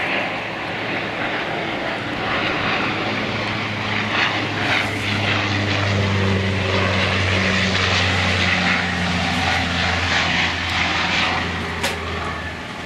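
Twin-turboprop military transport aircraft flying low overhead on landing approach: a steady propeller drone over a low engine hum. It builds toward the middle and eases off near the end, with the pitch dipping slightly as it passes.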